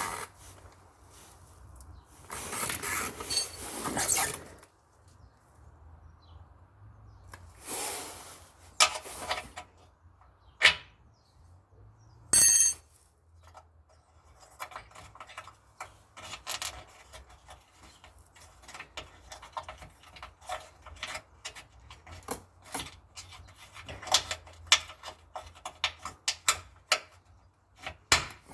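Hand tools working on metal car parts. There are two scraping, rubbing passages, then a sharp knock and a brief metallic clank with a ring, then a long run of small clicks and taps.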